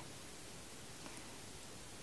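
Quiet room tone: a faint, even hiss with nothing else standing out.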